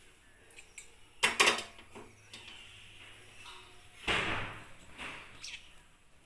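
A metal kadhai (Indian wok) being put down on a gas stove's pan support: two sharp metal clanks about a second in, then a longer scraping clatter about four seconds in as it settles on the grate, with a few light knocks between.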